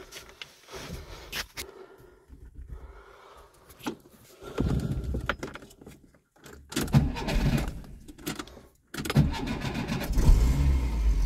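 Keys jingling at the ignition, then from about four and a half seconds in the Skoda Favorit's 1.3-litre four-cylinder engine is cranked and tries to run, with two sudden breaks in the sound. It is struggling to start and keep running, a problem the owner puts down to the car not being driven regularly.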